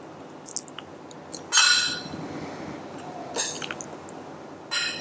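A metal spoon scraping and clinking against a glass bowl three times, the loudest about a second and a half in with a brief ring, as a soft mayonnaise-and-rice filling is scooped. Faint wet squishing of the filling being pressed into a hollowed raw tomato runs underneath.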